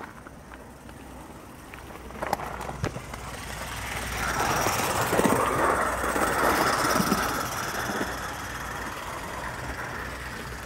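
Scratch-built gauge 1 live steam tank locomotive running on garden track, its exhaust and its wheels on the rails growing louder about four seconds in and easing off after about eight seconds.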